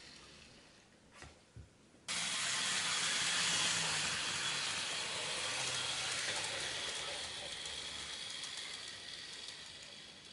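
N gauge model of a Hankyu 3300 series train running into a station on model track: a hissing wheel-and-motor noise with a high whine that starts suddenly about two seconds in and slowly fades as the train slows to a stop.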